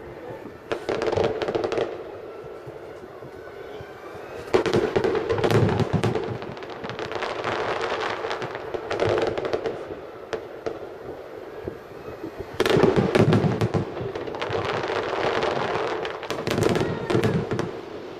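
Aerial fireworks shells bursting: about five clusters of booms, each with crackling and a slow fading rumble after it.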